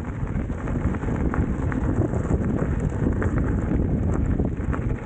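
Wind buffeting the microphone of a camera riding along on an electric unicycle, a steady low rumble with faint ticks and crackles over it.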